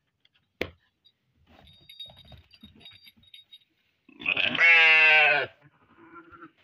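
A sheep bleats once, a long wavering call about four seconds in. A sharp knock sounds near the start.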